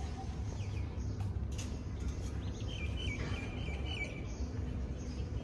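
A bird chirping: a quick run of short, high notes about halfway through, over a steady low background rumble.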